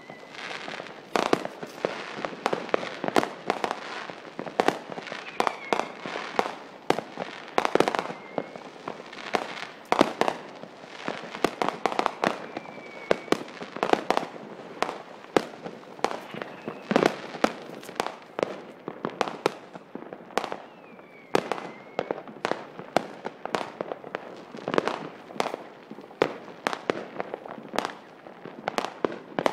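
Fireworks and firecrackers going off nonstop: dense, overlapping bangs and crackles, with a few short whistles among them.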